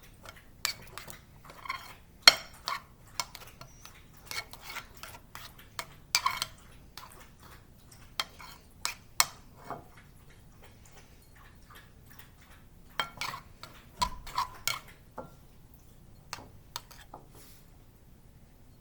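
A spoon knocking, clinking and scraping against a bowl as glue slime is stirred, in irregular clatters with a couple of quieter pauses.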